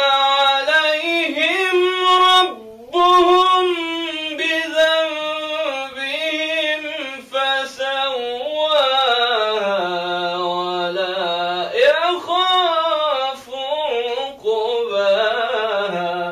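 A male reciter chanting the Quran in a slow, melodic tajweed style: one voice holding long, wavering notes with short pauses for breath between phrases.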